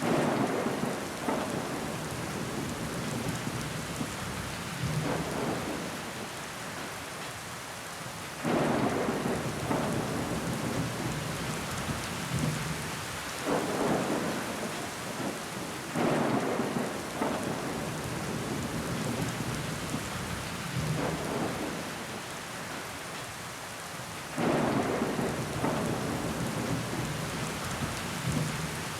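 Steady rain pattering on a window pane, with water trickling down the glass. Every few seconds there is a louder surge that starts abruptly and then fades, about five in all.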